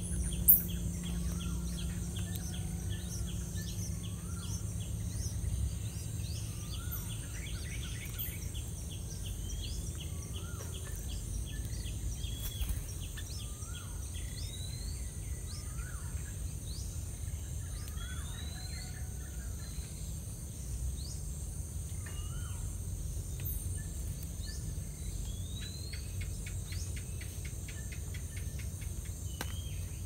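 Outdoor nest-side ambience: a steady high insect drone with bursts of rapid insect ticking near the start and near the end, over a low rumble, while birds give scattered short chirps. A brief thump about half a second in is the loudest sound.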